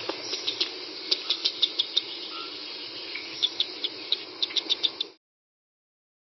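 An animal chirping: short high chirps or clicks in quick clusters over a steady hiss, cutting off abruptly about five seconds in.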